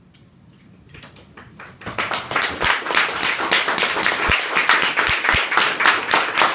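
Small audience starting to applaud: a few scattered claps about a second in, building into steady applause about a second later.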